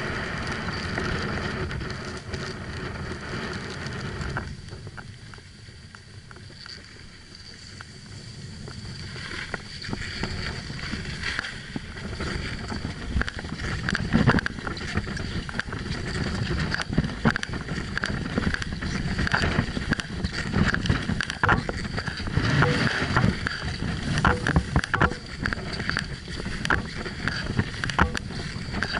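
Edges sliding and scraping over the groomed snow of a ski run during a descent, with wind rushing on the microphone. It eases off for a few seconds about a fifth of the way in, then turns louder and rougher again.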